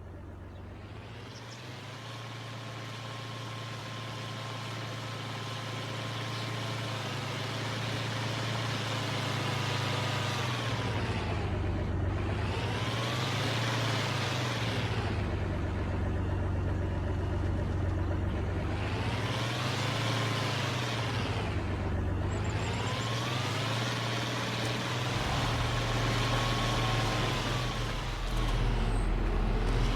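Heavy engine running with a steady low drone, growing louder over the first ten seconds, with a whine that rises and falls several times as the noise swells and fades.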